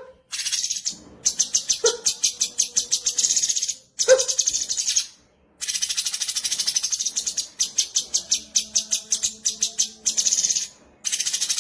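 Cucak cungkok song: long trains of rapid high chips, about eight a second, in runs of one to two seconds broken by short pauses, with a couple of sharper, lower notes mixed in.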